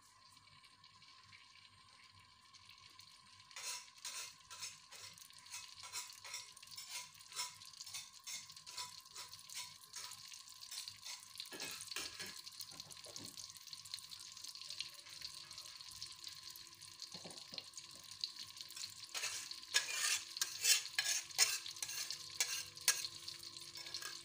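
Ground spice paste frying in hot oil in an aluminium wok: sizzling with many irregular crackling pops, starting a few seconds in and growing busier and louder toward the end.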